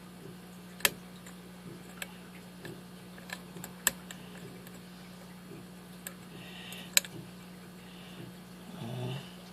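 Pick working the pin stacks of a Master Lock six-pin lockout padlock: a handful of sharp, irregularly spaced metallic clicks, the loudest about a second in, near four seconds and near seven seconds, over a steady low hum.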